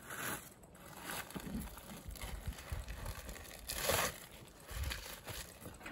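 Intermittent rustling and handling noises, coming in a few short bursts about a second apart.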